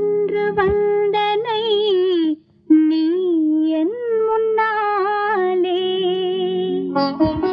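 A woman's voice hums a wordless melody in a 1960s Tamil film song, with long held notes that waver and glide ornamentally. Soft sustained low instrumental notes accompany it. The line breaks off briefly about two and a half seconds in.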